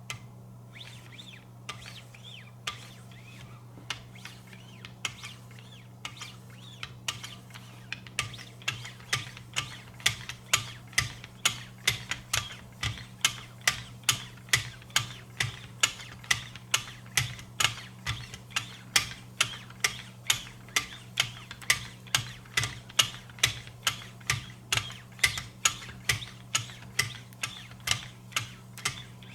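Lapping-film strokes on a guided knife sharpener's arms drawn along a steel blade edge, making a quick scraping click with each pass. The strokes are sparse at first, then come evenly about twice a second. A low steady hum runs underneath.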